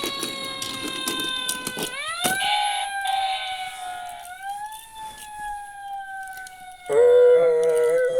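Fire engine siren wailing: its pitch slides slowly down, swoops sharply up about two seconds in, then eases down again. A few sharp clicks come in the first couple of seconds. Near the end a louder, steady, slightly wavering horn-like blast sounds for about two seconds.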